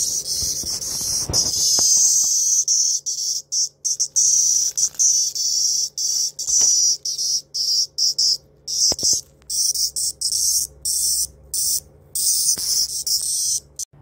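Hairy cicada (Platypleura kaempferi) held in the hand, buzzing loudly and high-pitched. The buzz is unbroken for the first few seconds, then breaks into short, irregular bursts with gaps.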